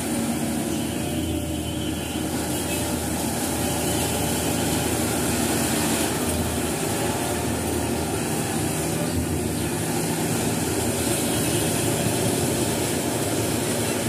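Yanmar crawler rice combine harvester running steadily as it cuts and threshes standing rice: a constant drone from its diesel engine and machinery, with no let-up.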